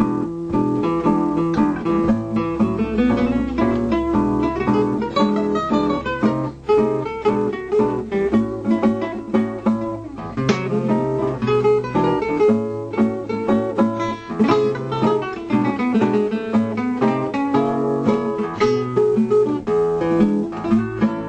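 Jazz guitar backing music: plucked guitar notes in a busy, steady groove.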